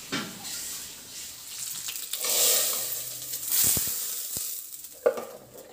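Food deep-frying in hot oil in a black iron kadai: a steady hissing sizzle that swells midway, then a few light clicks and one sharp knock near the end.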